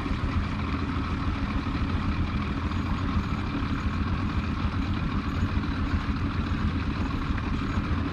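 Boat motor running steadily at a low, even drone.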